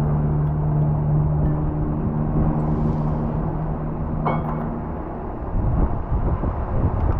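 Steady motor hum from construction bolting equipment, fading out about five seconds in, with a sharp click just after four seconds; a rough wash of noise rises near the end.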